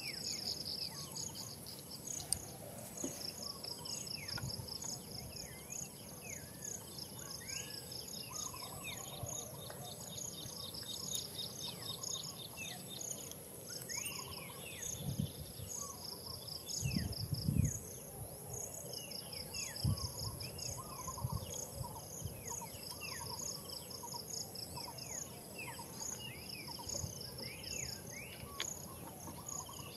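Forest insects chirping in rapid pulsed trains over a steady high-pitched drone, with many short falling chirps scattered throughout and a few low thuds about halfway through.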